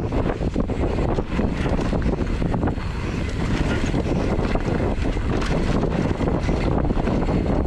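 Wind buffeting the microphone over a mountain bike clattering and rattling on a fast, rough trail descent, with many small knocks from roots and rocks.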